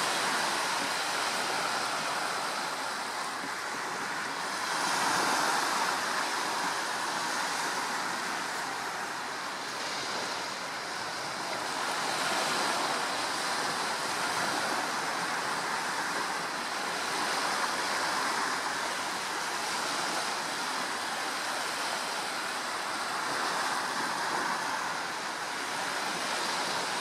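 Strong wind over choppy, whitecapped water, with waves breaking: a steady rushing noise that swells and eases in gusts.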